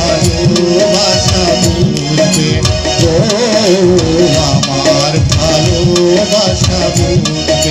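Live Bengali band music: a keyboard melody over a steady hand-drum rhythm, with low drum strokes whose pitch bends.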